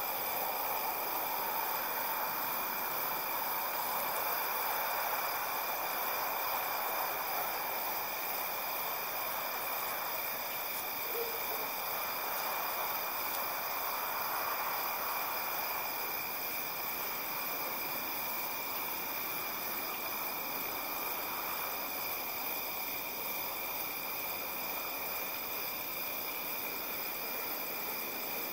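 Outdoor night ambience: several steady, high-pitched insect trills, typical of crickets, over a soft rush that slowly swells and eases. One short faint note comes about eleven seconds in.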